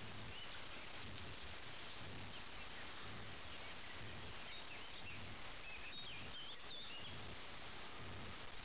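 Rural outdoor ambience: a steady high insect drone over a low hiss, with a bird giving a few short chirping phrases a little past the middle.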